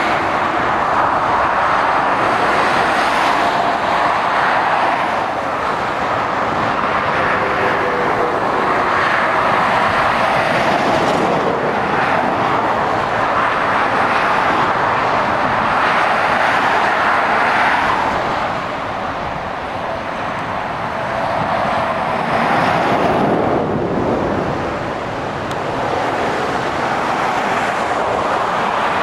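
Continuous motorway traffic: the tyre and engine noise of lorries and cars passing, swelling and easing as each vehicle goes by.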